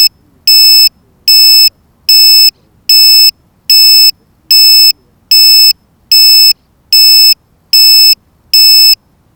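Electronic buzzer beeping loudly and evenly, a high-pitched beep about every 0.8 seconds, about eleven in all, stopping near the end.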